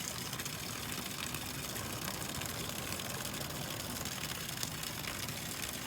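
Steady, even background noise with no distinct events, typical of outdoor air at a creek bed.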